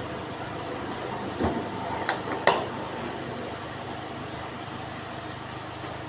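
Hard plastic instrument carrying case being shut: three sharp clicks and knocks between about one and a half and two and a half seconds in, the last the loudest, as the lid closes and latches, over steady background noise.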